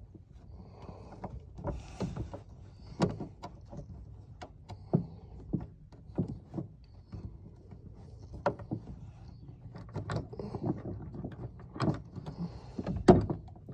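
Irregular clicks and knocks of a coil-spring gas pedal's pivot pin, spring and rod being worked into place by hand under a car's dash, with the loudest knock near the end.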